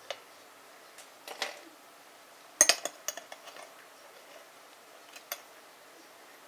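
Metal spoon clinking and scraping against a ceramic bowl and an ice cube: scattered sharp clinks, loudest in a quick cluster a little before the middle, with one more clink near the end.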